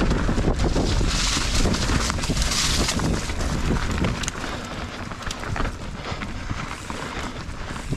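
Mountain bike riding down a dirt trail: wind rushing over the action camera's microphone and tyres rolling over dirt and roots, with many small clicks and knocks from the bike rattling. The rush is loudest in the first half and eases after about four seconds.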